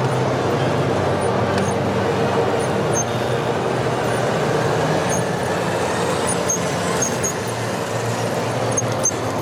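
A motor running steadily, with a few faint light clicks.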